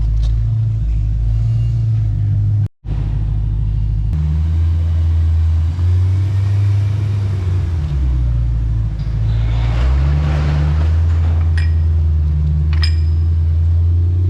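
BMW E92 M3's V8 engine with freshly replaced fuel injectors, driving on the road: a steady low drone that shifts in pitch a few times, with tyre and road noise swelling around ten seconds in. Two short sharp clicks come near the end.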